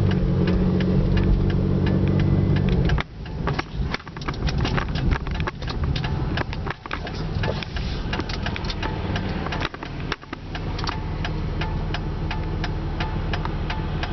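Car engine idling steadily, then cutting out abruptly about three seconds in. Irregular clicks and rustling follow over a low rumble.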